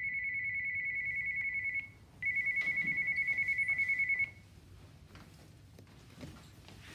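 School bell ringing the end of class: a high, rapidly trilling ring in two bursts of about two seconds each, with a short break between. After it, faint footsteps and shuffling as students leave.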